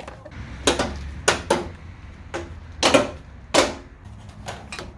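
Irregular sharp metal knocks and clanks, about six in all, some ringing briefly, as car body parts and tools are handled while the front end of a wrecked car is taken apart.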